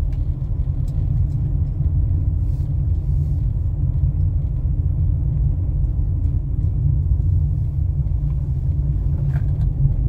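Steady low rumble of a car driving at low speed, heard from inside the cabin: engine and tyre noise.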